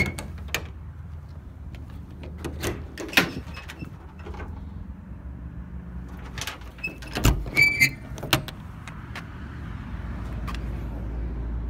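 Metal service-body compartment door being worked: scattered latch clicks and knocks, a heavy thud about seven seconds in followed at once by a short high squeak, over a low steady hum.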